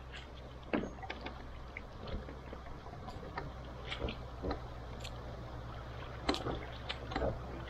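Solo canoe being lined by hand down a shallow, rocky riffle: water running and rippling around the hull, with irregular knocks and splashes from wading steps and the canoe touching stones.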